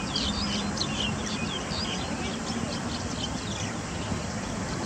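Small birds chirping, many short quick high calls in irregular succession over a steady background hiss.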